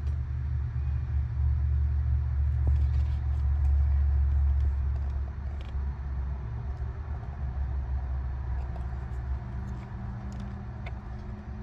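Low vehicle rumble, loudest over the first five seconds and then easing, with a few faint clicks as wire cutters work small LED wires.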